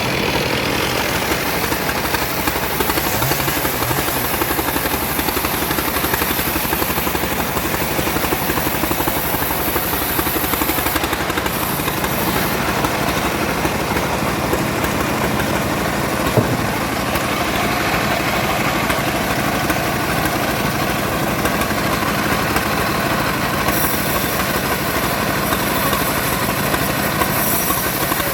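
Wood-cutting saw engine running steadily at an even speed, with one short knock about two-thirds of the way through.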